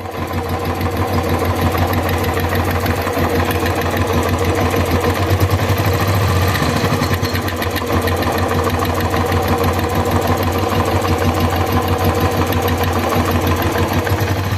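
Royal Enfield UCE single-cylinder engine idling steadily with a fast, even clatter, the kind of clatter traced to the PAIR (secondary air) valve rather than to cam backlash.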